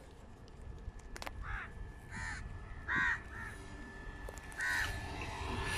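Crows cawing: about five short, separate caws spread over a few seconds, over a faint low rumble.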